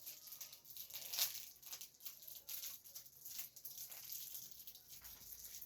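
Faint crinkling and tearing of a small plastic wrapper being opened by hand, in scattered short rustles and clicks.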